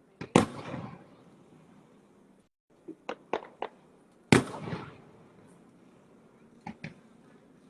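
Fireworks bursting: two loud booms about four seconds apart, each trailing off in a rolling echo, with a quick run of sharper pops between them and two more near the end.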